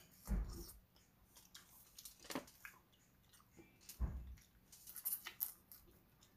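Close-up sounds of a person eating cooked crab by hand: irregular chewing, lip smacks and soft wet clicks as she bites and sucks meat from the crab. Two brief dull thumps stand out, about a third of a second in and again about four seconds in.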